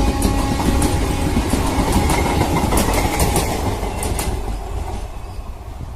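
Train running over a bridge: a steady rumble with the wheels clacking over the rail joints. The sound fades over the last couple of seconds.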